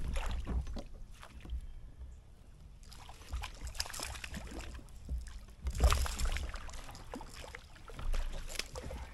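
A hooked largemouth bass thrashing and splashing at the water's surface right beside a kayak, in several irregular bursts of splashing during the fight.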